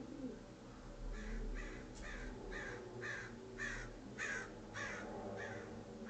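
American crow cawing from off-camera: a series of about nine harsh caws, roughly two a second, starting about a second in.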